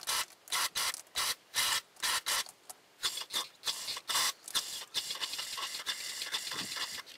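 Aerosol can of Berryman B-12 Chemtool carburetor cleaner sprayed into the needle-valve hole of an outboard motor's carburetor to clear clogged jets. It hisses in short bursts, about three a second, then gives one steady spray of about two seconds near the end.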